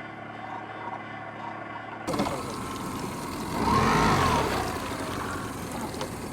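An engine running steadily. About two seconds in the sound changes abruptly, and a second or so later a louder engine note rises and then falls in pitch before settling back to a steady run.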